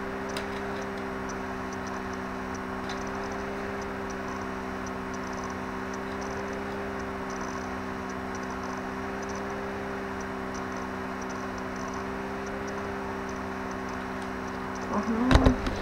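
A steady low hum made of a few held tones over an even hiss, with faint, scattered light ticks.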